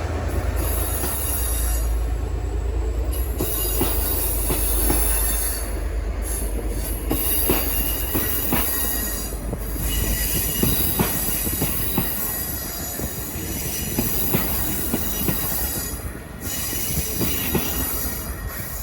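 Passenger train rolling slowly through the station. Its wheels squeal in a steady high-pitched whine over a low rumble, with irregular clicks and knocks as the wheels cross rail joints and points.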